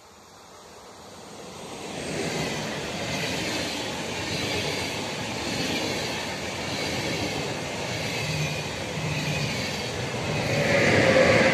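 ČD railjet express train running past at speed. Its noise builds over the first couple of seconds and holds steady as the coaches go by, then swells near the end with falling whine-like tones as the end of the train passes.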